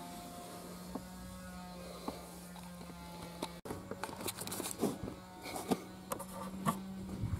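Plastic interior trim panels of an Audi A6 C7 being handled: a few clicks early, then, after a short break about three and a half seconds in, a run of clicks, taps and rustles. A steady low electric hum runs underneath.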